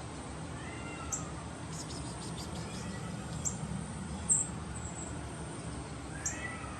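Persian kittens giving faint, high squeaks now and then, over a steady low hum.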